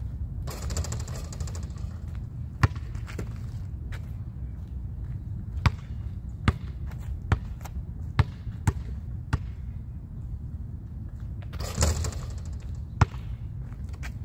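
A basketball bouncing on an asphalt court: a few single bounces, then a run of about six dribbles under a second apart around the middle. Two short rushes of hissing noise, one near the start and one near the end, sit over a steady low rumble.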